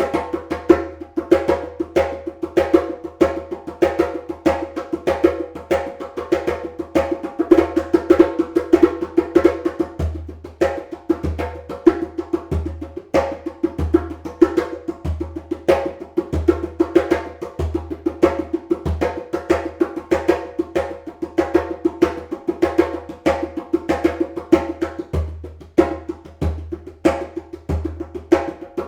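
Djembe played by hand in a fast, steady rhythm, sharp slaps and open tones mixed with deep bass strokes. This drum is tuned a little higher, for crisper slaps.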